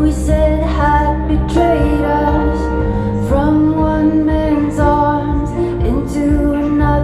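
Recorded music with a singing voice, played back through Avantgarde Trio G3 horn loudspeakers driven by Air Tight valve amplifiers: held sung notes over a sustained accompaniment.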